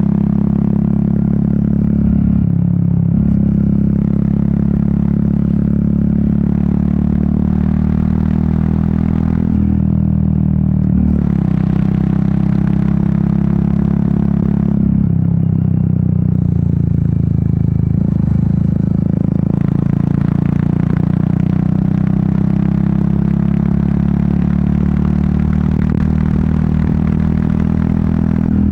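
Royal Enfield Meteor 350's single-cylinder engine and exhaust running steadily on the move, the engine note dipping and shifting briefly about four times. Wind rushes over the microphone, louder in stretches from about the middle on.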